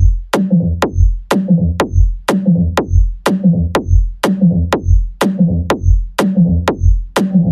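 Progressive electro house music: a four-on-the-floor drum-machine kick at about two beats a second under a synth bass line, with a short high tick about once a second.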